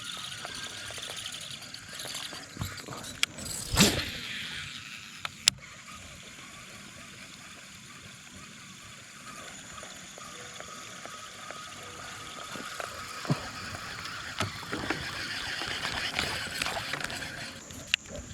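A steady outdoor hiss broken by a few sharp clicks and knocks, the loudest about four seconds in.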